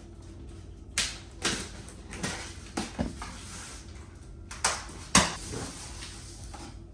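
A series of sharp knocks and bumps, about eight in six seconds, from objects being handled and set down, over a steady low hum.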